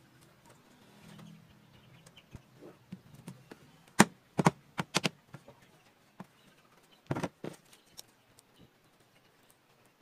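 Pieces of wood knocking against one another and the bench as a small plywood cabinet door and its frame strips are handled: a few sharp knocks in quick succession about four seconds in, and another short cluster about three seconds later.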